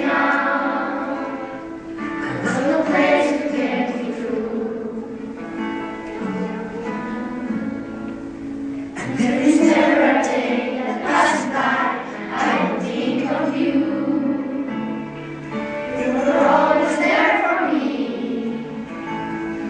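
A group of young boys singing a song together in unison, over instrumental accompaniment.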